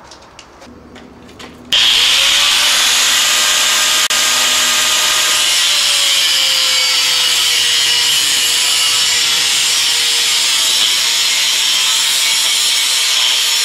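Corded angle grinder with an abrasive disc cutting through a steel chain-link gate post. It starts abruptly about a second and a half in, a loud hissing grind over a whine that sags and wavers as the disc bites into the metal.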